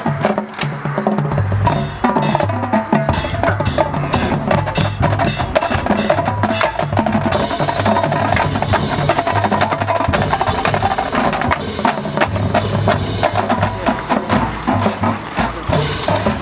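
Band music with loud, busy percussion of drums and wood-block-like clicks, over sustained pitched notes and a bass line.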